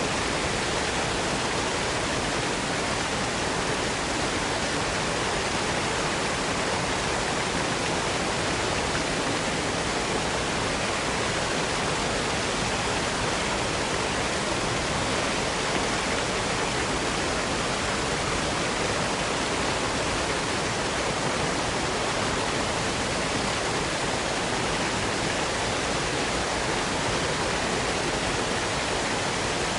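Waterfall: a steady, unbroken rush of falling water, the same level throughout.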